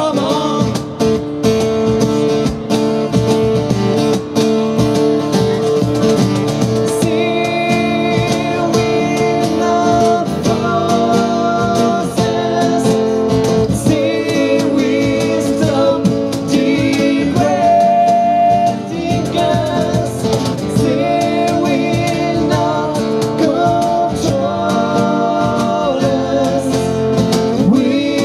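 Live acoustic band: two acoustic guitars strummed over a cajon beat, with a man singing.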